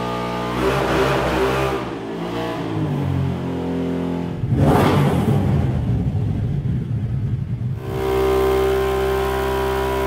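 Can-Am Renegade 1000's Rotax V-twin, fitted with a modified head, bigger valves and a bigger cam, idling and given quick revs: one rise about half a second in, a sharper rev near the middle that falls away over a few seconds, then a steady idle again near the end. The freshly tuned engine returns to idle after each rev without stalling.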